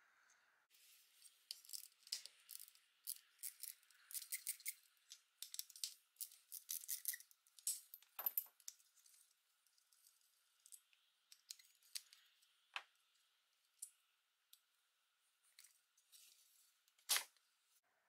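Small metal parts of a vintage Sears Kenmore hair dryer clicking and rattling as they are handled and taken apart by hand, the coiled heating element and housing among them. The clicks come thick and fast at first, thin out after about eight seconds, and end with one sharper tap near the end.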